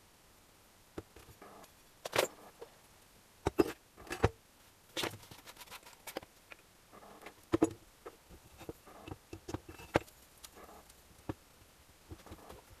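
Engine parts being handled on a wooden workbench: an irregular run of metal clinks, knocks and short scrapes as parts are picked up and set down, with a few sharper knocks among them.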